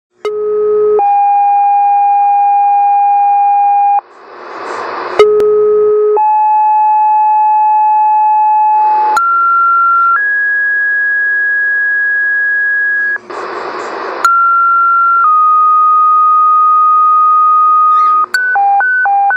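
Fire department two-tone sequential paging tones heard over a scanner radio, alerting departments to a call. Four tone pairs, each a short steady tone followed by a longer one at another pitch, with bursts of radio static between some of them. Near the end a rapid high-low alternating alert beep starts.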